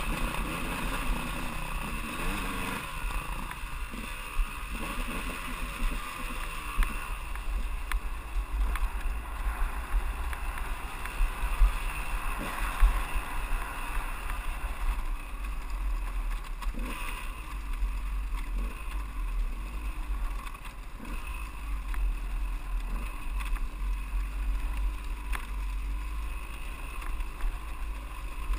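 2001 KTM 200EXC two-stroke dirt bike engine running, its pitch rising and falling with the throttle while riding over rough ground, with a constant low wind rumble on the microphone.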